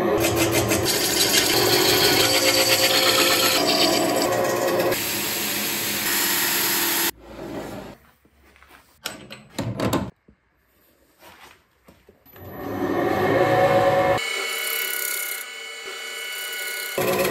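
Wood lathe spinning a large wooden disc while a gouge cuts its face: a loud, steady scraping noise of the cut that stops suddenly about seven seconds in. A few knocks follow as the blank is handled, then cutting resumes, with a steady pitched buzz near the end.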